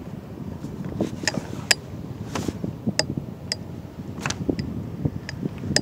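Irregular sharp clicks and light knocks, about a dozen, over a low rumbling wash: the plastic fishing kayak and the gear on it knocking as it rocks on choppy water.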